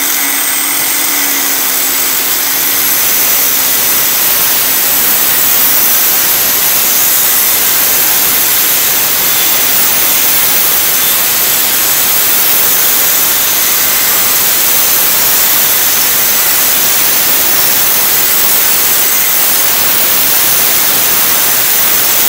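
Short-handle electric cutting grinder with an abrasive cut-off disc cutting steadily: a loud, even rushing hiss, with a low motor hum under it during the first few seconds.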